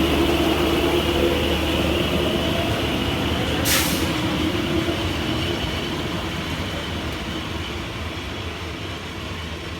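A passenger train running, heard from on board: a steady mechanical hum that slowly fades, with a short hiss about four seconds in.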